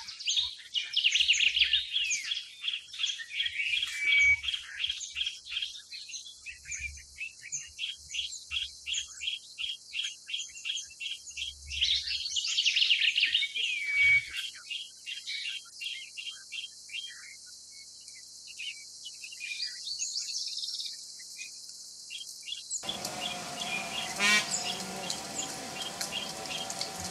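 Small birds chirping: a long run of short, repeated chirps, about three a second, with higher calls over them, thinning out about halfway through. Near the end the background changes abruptly to a steadier hum.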